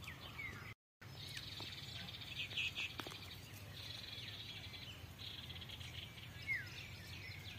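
Faint outdoor ambience of insects trilling in a high buzzing band that comes and goes in bouts, with a few short falling bird chirps. The sound drops out to silence for a moment about a second in.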